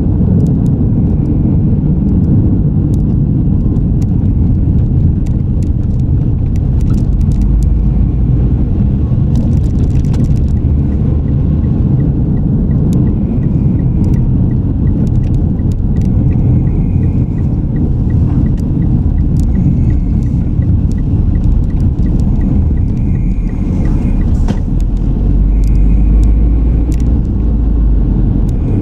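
Car driving on a city road, heard from inside the car: a steady low rumble of tyres and engine, swelling a little near the end. A faint, regular ticking runs through the middle stretch.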